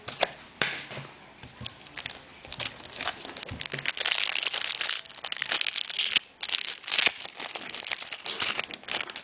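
Foil trading-card pack being crinkled and torn open by hand: irregular crackling and rustling that grows busier from about two seconds in.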